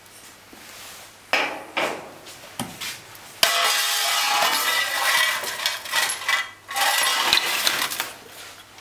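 Metal-on-metal handling of a steel injector clamping device and tools: a few sharp knocks, then several seconds of continuous metallic scraping and clattering with a faint ring, as the axial clamp is taken off.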